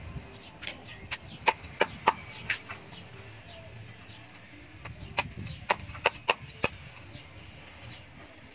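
Heavy cleaver chopping through raw poultry on a wooden chopping block: a run of about six sharp knocks in the first two and a half seconds, then another run of about five about five seconds in.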